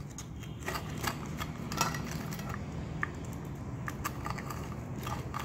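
A knife cutting through the crisp, gram-flour-battered crust of a fried nan pakora on a plate: irregular small crackles and clicks.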